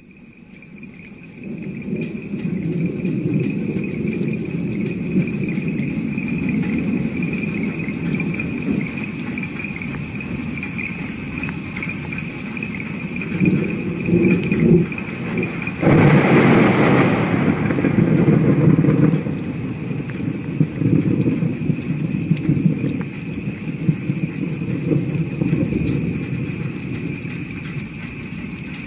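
Ambient soundtrack: a steady high-pitched whine and a fainter lower tone over a low, rough noise. The noise fades in over the first couple of seconds, and a louder rush of noise starts just past the middle and lasts a few seconds.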